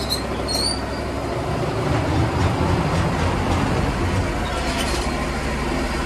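Portable bandsaw sawmill running with a steady low hum while its head is hand-cranked to the cutting height, a rougher rumble from about one and a half to four seconds in, with a few faint squeaks.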